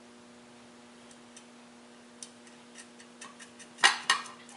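Light metallic clicks and ticks from nuts being threaded by hand onto the studs of a garage door opener's steel motor plate. The clicks come more often toward the end, with a couple of louder clinks near the end, over a faint steady hum.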